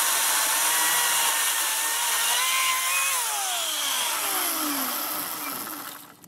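Echo 58-volt battery chainsaw cutting through a log: a steady electric motor whine with the chain chewing wood, rising slightly in pitch as it breaks through about three seconds in, then falling in pitch as the motor winds down and the chain coasts to a stop.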